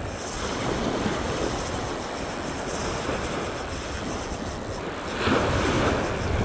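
Steady wind rumbling on the microphone over small waves washing up a sandy beach, swelling a little about five seconds in.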